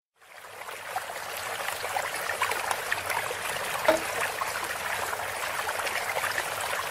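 Water splashing and trickling from a tiered stone garden fountain, a steady splashing that fades in over the first second or so.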